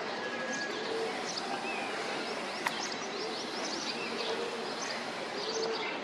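Chorus of small birds chirping and twittering, with a short lower call repeating about once a second. A single sharp click comes about halfway through.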